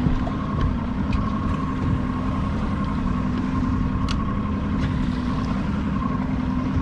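Motorboat engine running steadily, with a few faint ticks over it.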